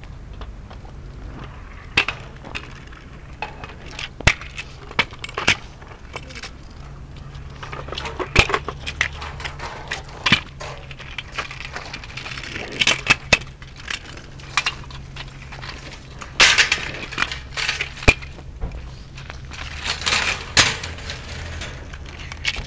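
Irregular sharp clacks and knocks, with a few short scraping rushes, over a steady low rumble.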